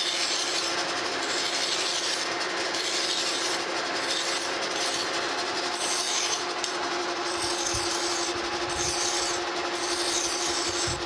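A flat hand file rasping against a metal shaft spinning in a running metal lathe, in repeated strokes that knock down high spots and dings on the shaft. The steady hum of the lathe runs underneath, with a few low thumps past the middle.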